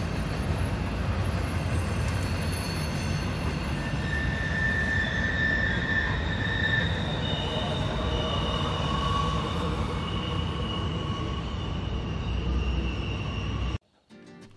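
A steady low rumble with several long, drawn-out high squealing tones layered over it. It all cuts off abruptly near the end.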